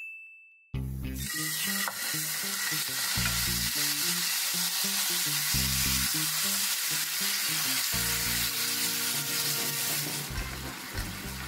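A short chime, then pork ribs sizzling steadily in a hot frying pan; marinade goes onto the meat near the end.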